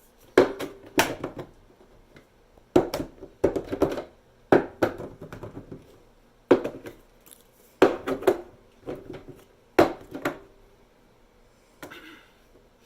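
Shelving-unit poles being knocked and shoved into a shelf's holes: about eight sharp knocks, each with a short rattle, at irregular intervals. The pole won't seat in the hole.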